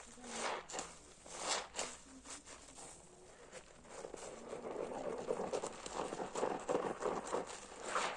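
A hard sponge full of soapy foam being squeezed and worked, making wet squelches and crackling foam. There are a few separate squishes early on, then a denser, continuous squelching from about halfway.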